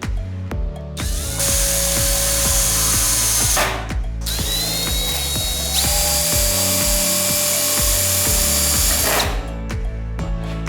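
Electric power tool running in two long runs, about two seconds and then about five seconds, with a brief stop between, over background music with a steady beat.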